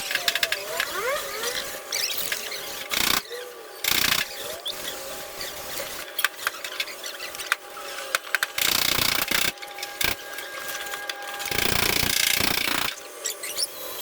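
Squeaking, clicking tool work on a car's body panel during paintless dent repair, broken by four short, loud rushes of noise.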